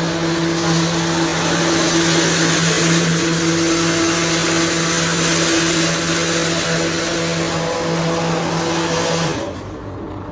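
An engine or motor running steadily with a low hum and a dense hiss, which cuts off suddenly about nine seconds in.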